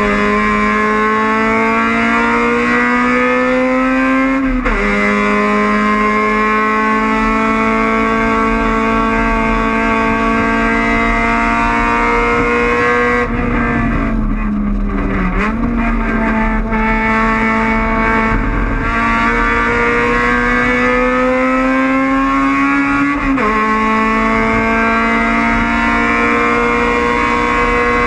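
Honda Civic race car's four-cylinder engine at full throttle, its pitch climbing slowly as it pulls through the gears, with sharp drops at upshifts about 4.5 seconds in and again about 23 seconds in. Near the middle the revs fall and then pick back up.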